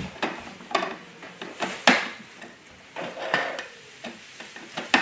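Irregular hard-plastic clicks and knocks as small toy wheelie bins are handled and hooked onto the rear bin lift of a Bruder toy garbage truck, with sharper clacks about two seconds in and at the end.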